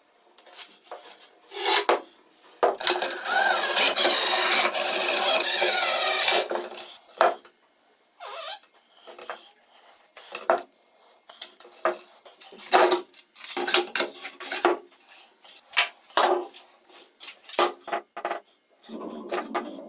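A homemade plywood jig scraping and shaving plastic as it is worked around the rim of an orange plastic pipe. One long continuous scrape with a squeal in it about three seconds in, then a run of short, separate scrapes and knocks.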